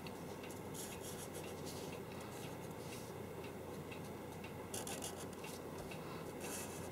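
Felt-tip marker drawing lines on a white board: a few faint rubbing strokes over a low steady room hiss.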